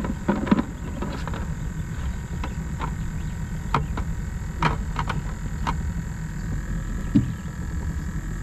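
Cast net being gathered and readied by hand in a boat: scattered sharp clicks and taps from the net and its weighted line, a few seconds apart, over a steady low rumble.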